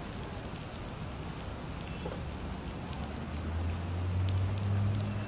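Steady rain falling on a wet street. About three seconds in, the low hum of a passing car on the wet road grows louder.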